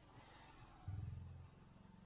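Near silence: a faint low rumble of background noise that swells briefly about a second in.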